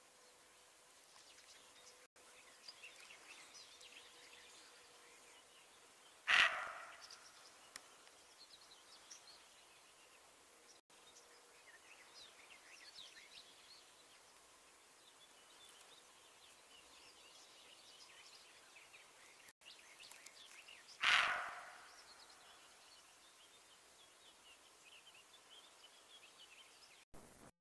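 Roe deer barking twice, two short, sharp alarm barks about fifteen seconds apart. Faint birdsong chirps in the quiet meadow between them.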